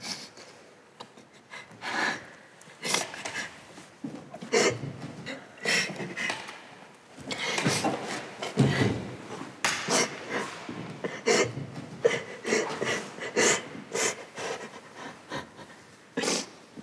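Heavy breathing and rustling of clothes from two people in a close embrace, broken by many short, irregular bumps and rustles.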